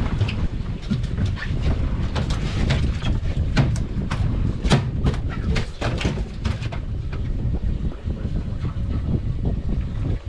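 Wind buffeting the microphone over water noise around a small boat, with a run of sharp irregular clicks and knocks from about one to seven seconds in.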